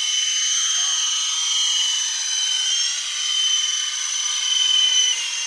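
Large toy RC helicopter hovering: a steady high-pitched whine from its motor and rotors. The pitch dips slightly about three seconds in and drops a little near the end.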